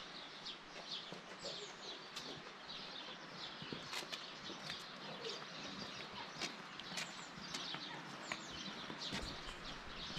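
Small birds chirping, many short high calls repeating throughout, over a quiet outdoor background with a few sharp clicks.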